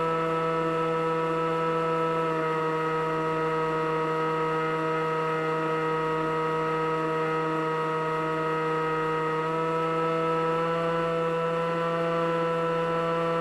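Electric motor and propeller of an FPV model plane running steadily at cruise throttle, a droning whine whose pitch shifts slightly a couple of times.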